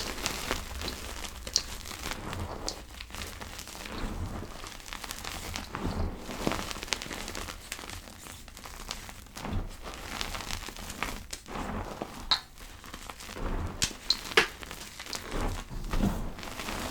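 Soft powder being crushed and worked, giving irregular soft crackles and crunches with a few sharper cracks in the last few seconds.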